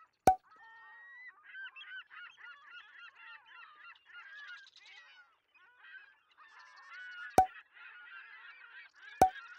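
A flock of birds honking and calling over one another in a dense, continuous chatter. Three sharp knocks cut through it, one near the start and two near the end, louder than the birds.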